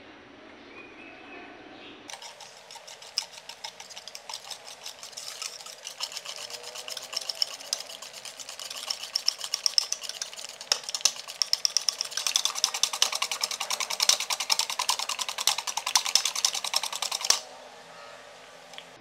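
Wire balloon whisk beating a thin cake batter in a mixing bowl: rapid clicking of the wires against the bowl with wet slapping, growing faster and louder, then stopping abruptly near the end.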